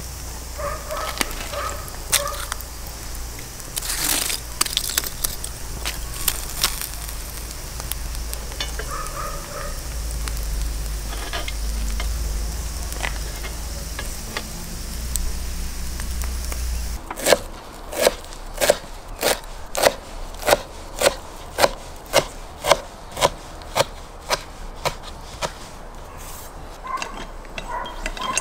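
Sturgeon chunks on skewers sizzling over hot charcoal, with scattered crackles and a low steady rumble. About two-thirds of the way through, the sound changes abruptly to a run of sharp, evenly spaced knocks, about two a second.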